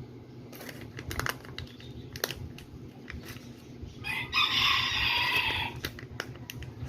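A rooster crowing once, a single drawn-out call of nearly two seconds, about four seconds in and louder than anything else here. Light clicks and taps sound now and then around it.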